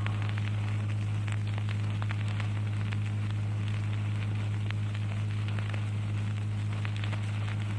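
Steady low electrical hum with a fine crackle of static: the background noise of an old recording or amplification system, heard in a pause between phrases of recitation.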